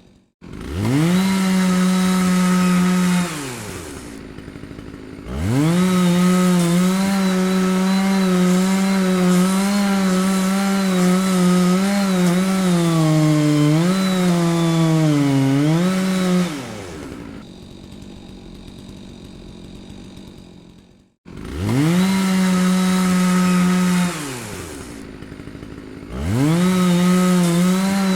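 Chainsaw engine revved to full throttle four times, dropping back to a lower idle between bursts. During the long second burst the engine note sags and recovers several times before falling away.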